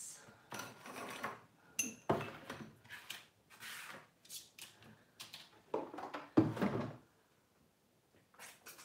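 Irregular knocks and clatters of equipment being handled and moved, with a brief squeak about two seconds in; the loudest knock comes a little after six seconds, followed by a short quiet spell.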